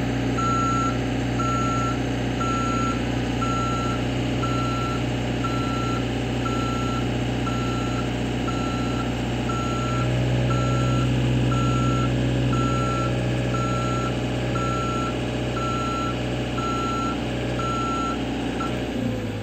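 JLG boom lift's motion alarm beeping about twice a second over a steady low engine hum; the beeping stops near the end.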